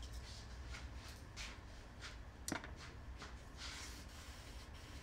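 Faint handling of small metal air-sander parts on a workbench, with one sharp click about two and a half seconds in, over a low steady hum.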